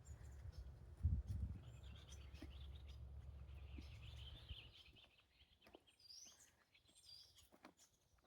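Small wild birds singing faintly: a rapid twittering song, then a few high whistled notes near the end. Wind rumbles on the microphone for the first half, with a loud gust about a second in.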